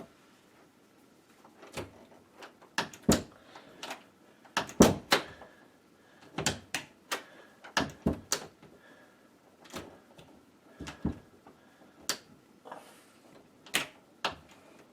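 A hinged door being swung and shut again and again, with sharp clicks and knocks as it meets the frame and latch. It still drags slightly on the frame, a sign of a door sagging on its hinges.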